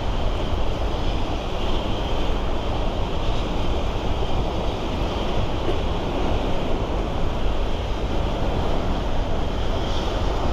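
Steady rushing noise of turbulent water from a power plant's warm-water outflow, with wind buffeting the microphone.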